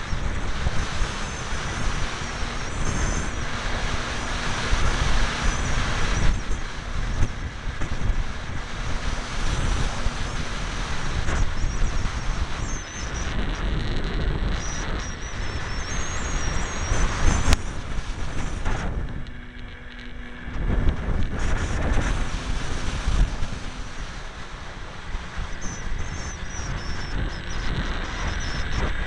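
Wind rushing and buffeting over the onboard camera's microphone on a ParkZone T-28 Trojan foam electric RC plane in flight, with the electric motor and propeller running. The noise drops off briefly about two-thirds of the way in, then picks up again.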